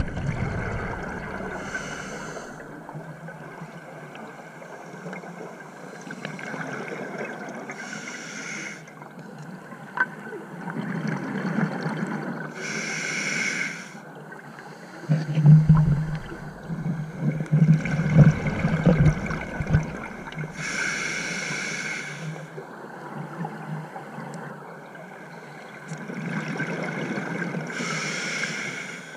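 Scuba diver breathing through a regulator underwater: a hissing inhalation every several seconds, with stretches of gurgling exhaled bubbles between them, the loudest about halfway through.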